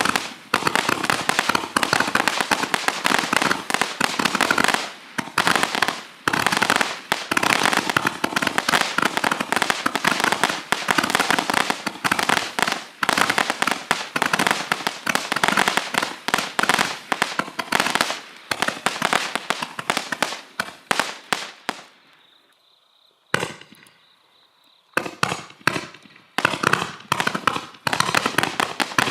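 Roman candle battery going off: dense, rapid popping and crackling for about twenty seconds, a lull of a few seconds with a single pop, then more scattered pops.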